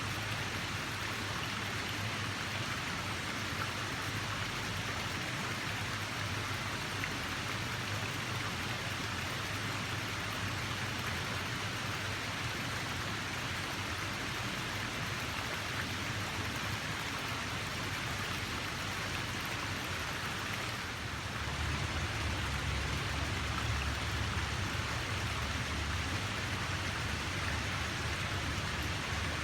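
Steady rushing water, an even hiss-like wash. About two-thirds of the way in it dips briefly, then goes on slightly louder with a deeper rumble underneath.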